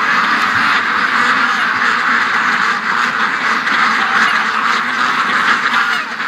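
A large flock of domestic ducks, white Pekins and darker Rouen-type ducks, quacking all together in a dense, unbroken chorus. The flock is stirred up at being let out of its pen late in the day.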